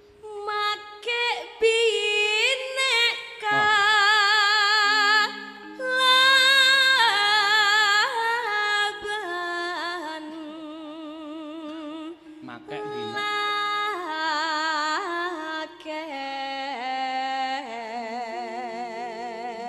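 A sinden (female Javanese gamelan singer) sings solo into a microphone with a wide vibrato, gliding between long held notes. Steady low accompanying notes sit beneath her voice and change pitch in steps.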